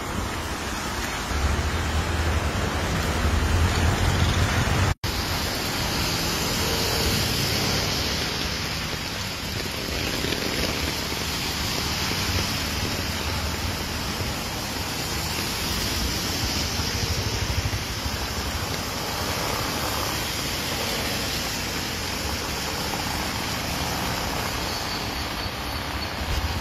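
Steady noise of traffic on a rain-wet road, with tyres hissing and rain falling. A vehicle's low rumble is heavier in the first few seconds, and the sound cuts out for an instant about five seconds in.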